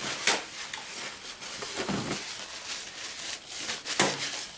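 Handling noises from a pawl-type ratchet head being greased and reassembled: light rubbing with a few small sharp clicks, the loudest about four seconds in.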